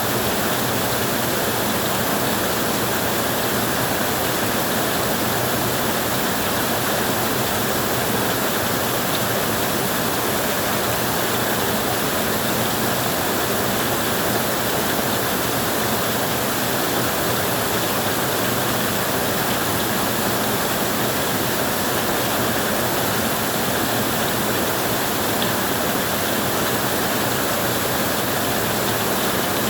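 Heavy rain falling steadily on a tin roof: a dense, even hiss with no breaks.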